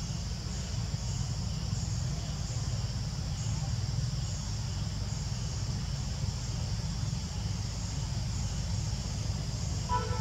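Insects chirring steadily in a high band, pulsing a little more than once a second, over a continuous low rumble. A brief pitched call comes near the end.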